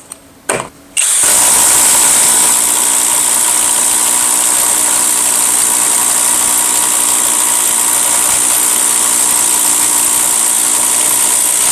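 Kobalt 24V brushless impact driver boring with a 1 1/8-inch spade bit: after a couple of short blips it runs steadily for about ten seconds, then stops at the end.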